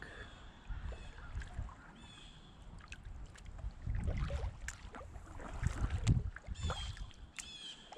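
Kayak paddle strokes on calm water: the blade dipping and swishing, with water dripping off it between strokes.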